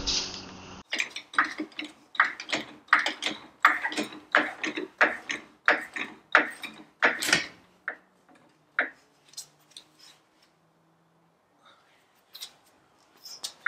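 Steel floor jack being pumped by its long handle to lift the front of a pickup, giving a rhythmic clicking about three times a second, then a few scattered clicks.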